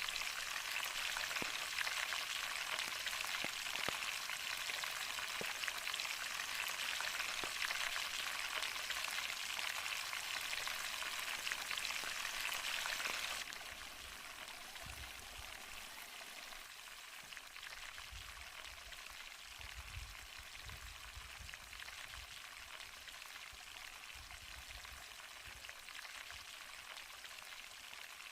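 Chicken frying in hot oil, a dense crackling sizzle that drops suddenly to a softer sizzle about halfway through, with a few low rumbles later on.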